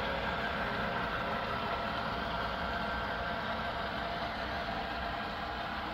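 HO scale model locomotive's sound decoder playing a locomotive engine running steadily, heard through the model's small speaker.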